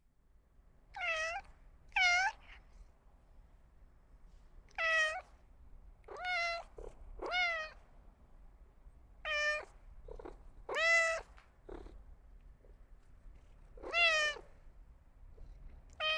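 A domestic cat meowing repeatedly: about nine short meows, coming irregularly every one to three seconds.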